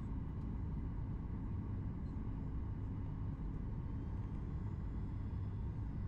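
Steady low rumble of a Boeing 737 MAX 8 heard from inside the passenger cabin, with a few faint steady high tones over it.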